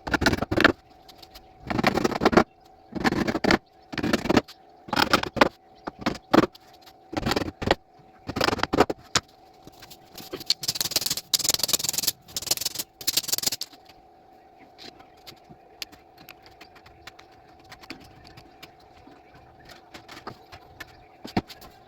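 Tool working wood in short, repeated scraping strokes, roughly one a second, with a brief run of higher hissing strokes about halfway through, over a faint steady hum.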